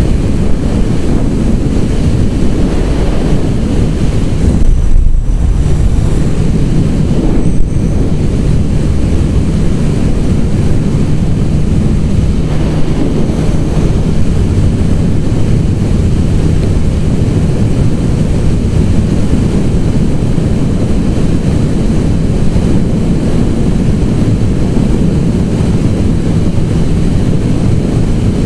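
Honda CB1000 motorcycle at steady cruising speed: heavy wind rushing over the camera's microphone with the engine's even drone underneath. The noise dips briefly about five seconds in, after which the engine note holds steady.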